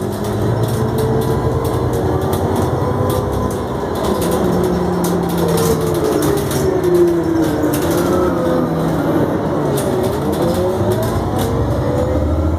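Iveco 12-metre natural-gas (GNV) city bus heard from inside the cabin: engine and automatic gearbox whining and running under way, their pitch rising and falling as the bus changes speed, with a dip and a fresh rise about ten seconds in.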